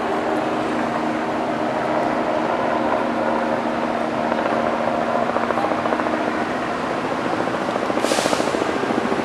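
Street traffic: a steady engine hum runs throughout and turns into a fast pulsing in the last few seconds, with a short hiss about eight seconds in.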